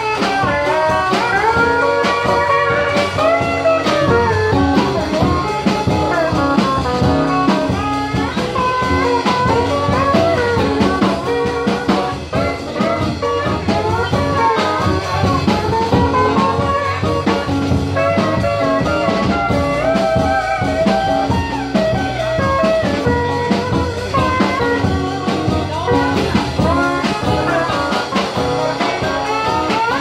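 A small live acoustic band plays a bluesy, jazzy tune: strummed acoustic guitar and an Ibanez PCBE-12 acoustic bass through a Fender Rumble 100 amp, under a sliding, wavering lead melody.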